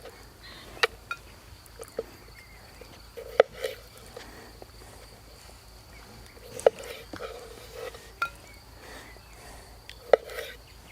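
Camp cookware clinking and knocking: about seven sharp knocks scattered irregularly, each with a short ring. A steady high insect chirr runs underneath.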